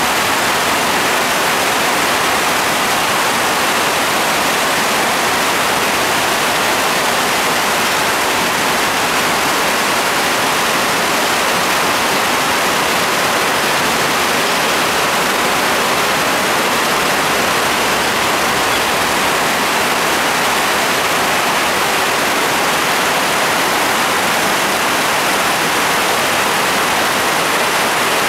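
Heavy rain pouring down in a steady, loud hiss that holds unchanged throughout.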